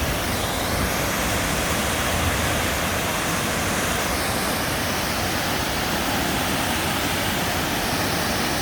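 Waterfall rushing: a steady, even wash of water noise.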